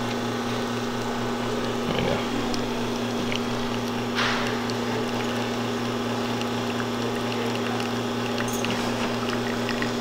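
Rancilio Classe 8 espresso machine's pump running at a steady hum as it pushes water through the coffee puck during a shot, with a brief hiss about four seconds in.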